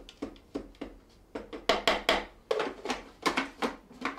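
A spatula scraping and knocking against the plastic bowl of a small food processor: a quick, irregular run of short knocks and scrapes, loudest about two seconds in, with the lid being set back on near the end.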